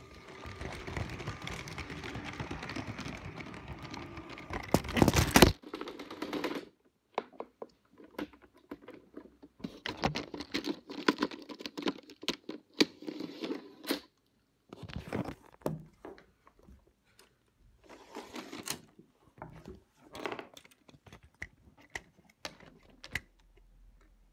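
Rubbing and rustling of objects being handled, ending in a loud knock about five seconds in. After it come irregular bursts of clicking and clattering, with short pauses between them.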